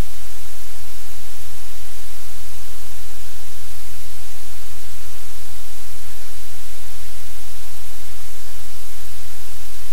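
Loud, steady static hiss with a low electrical hum underneath, unchanging throughout, with no other sound standing out.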